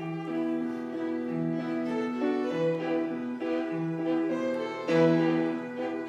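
Violins and piano begin playing together right at the start, a slow melody of held notes over a repeating low line: the instrumental introduction to a choir anthem.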